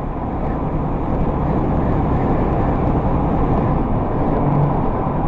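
Steady road and engine noise of a moving car, growing a little louder over the first second or so and then holding even.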